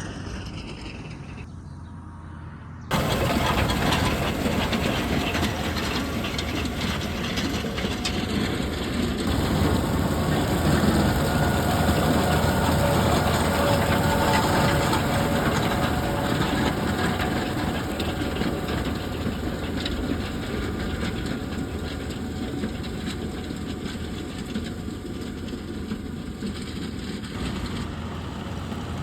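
Fendt 828 tractor working with a crimper roller: a steady engine drone with a broad rushing noise. It comes in sharply about three seconds in, after a quieter start.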